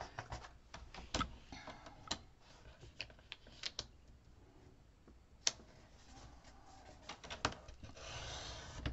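Light clicks and taps of patterned paper being positioned on a paper trimmer, then, about 8 seconds in, the trimmer's sliding blade drawn along the track, cutting through the paper with a brief scraping hiss.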